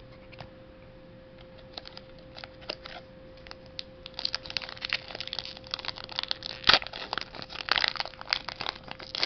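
Foil Pokémon booster pack wrapper crinkling as it is handled and torn open. The crackles are sparse at first and come thick and fast from about four seconds in. A faint steady hum runs underneath.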